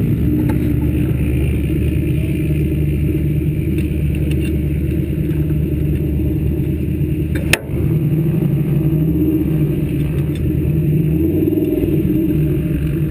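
Sand rail buggy engine running steadily, with one sharp click and a brief dip in the sound about seven and a half seconds in.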